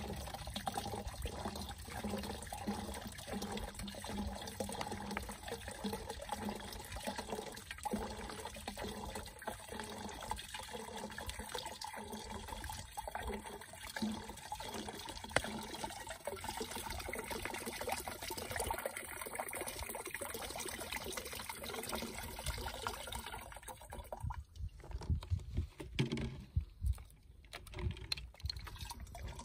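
Vinegar poured in a steady stream from a plastic bottle into a large plastic jug, gurgling and splashing. About three-quarters of the way through the pouring breaks off into a few irregular knocks and bumps as the bottles are handled.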